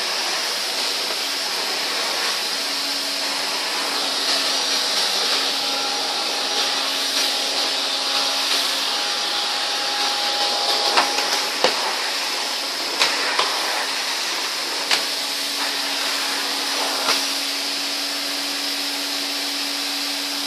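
1970s Hoover Constellation canister vacuum cleaner running steadily with a motor hum and a rush of air, sucking debris through its hose. Occasional sharp clicks are heard, several of them in the second half.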